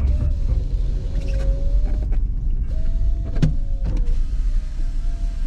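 A car's power window motor whines steadily for about two seconds, then runs again for about a second and a half, with a few clicks, over the low rumble of the car inside the cabin.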